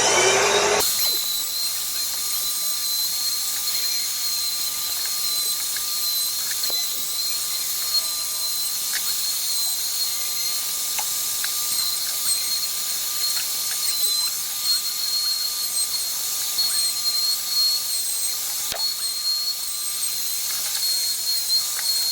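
Electric wood router with a round-over bit, spinning up and then running at a steady high-pitched whine while rounding over the edges of the chair's boards.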